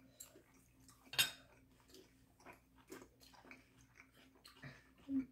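Metal utensil scraping and clinking on a ceramic plate, with one sharp clink about a second in, among quiet scattered clicks of someone eating.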